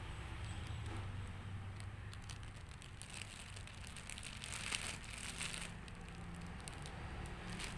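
Thin plastic packaging of a pack of diaper pants crinkling and crackling under fingers that pick and press at it, busiest in the middle of the stretch. A low steady hum runs underneath.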